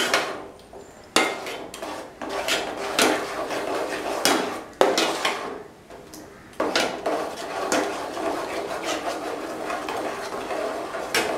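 Metal perforated ladle stirring a thick jackfruit-and-jaggery paste in a metal pot, scraping the pot with sharp knocks against it every second or two.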